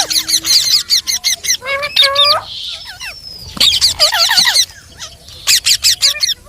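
Parrot calling in rapid runs of squawks and chirps that glide up and down in pitch, with brief pauses between the runs.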